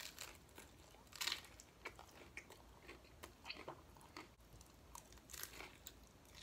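Crisp fried taco shells crunching as they are bitten and chewed, with irregular crackly crunches throughout and the loudest bite about a second in.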